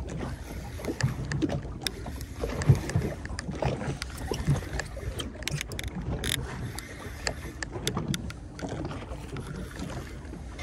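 Sea water slapping and splashing against the hull of a small boat, with wind on the microphone and scattered sharp clicks from a spinning reel being wound in.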